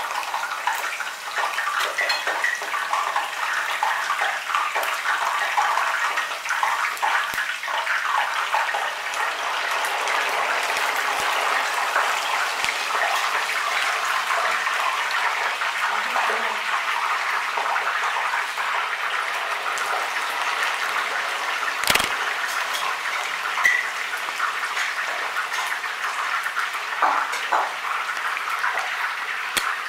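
Potato chunks deep-frying in hot oil: a steady sizzle full of fine crackles. A single knock sounds about two-thirds of the way through.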